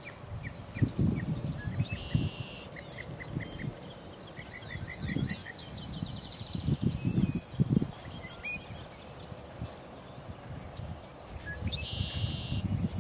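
Outdoor field ambience: birds chirping in runs of short, quick repeated notes, with a couple of brief buzzy trills and irregular low muffled thumps underneath.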